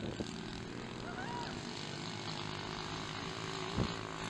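Engines of several small motocross bikes running around the dirt track, a steady drone made of several overlapping pitches. A brief knock near the end.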